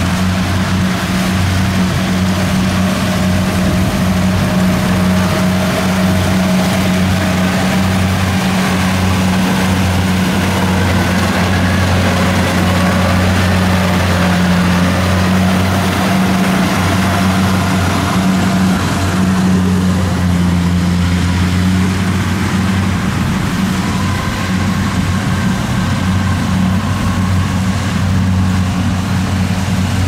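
Kubota DC70 rice combine harvester's diesel engine running steadily under load as it cuts and threshes rice, a loud, even drone that holds the same pitch throughout.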